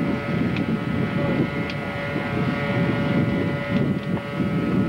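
Wind buffeting the microphone over the steady drone of fire appliance engines running, with a few faint ticks.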